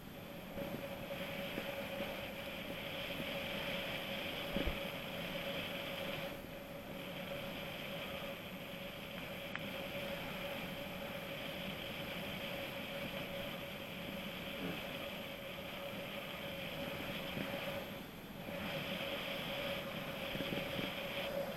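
Mountain bike rolling along: a steady hum over a hiss of tyres and moving air, which eases briefly twice, about six seconds in and near the end. A single knock sounds just under five seconds in.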